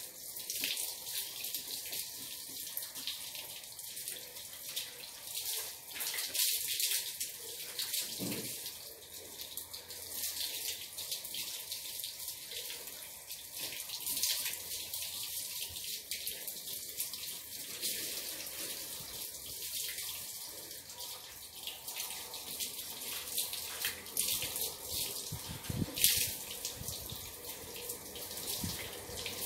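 Water splashing steadily with a constant hiss, dotted with irregular spatters and one sharper splash near the end.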